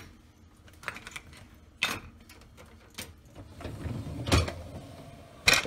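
Wire dishwasher racks and the dishes in them being handled, with a few sharp clacks and knocks. A low rolling rumble runs into a hard knock about four seconds in, like a rack running on its rollers and stopping, and the loudest clack comes near the end.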